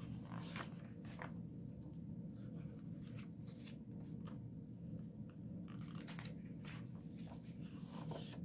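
Pages of a hardcover picture book being turned by hand: several soft, faint paper rustles and flicks over a low steady room hum.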